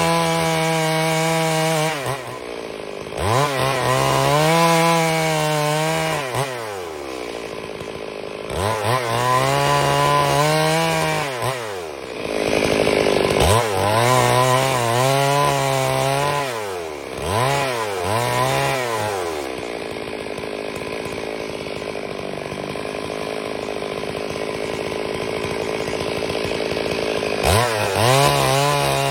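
Two-stroke chainsaw ripping a log lengthwise into boards. The engine revs up and drops back several times, then runs steadily for several seconds near the end.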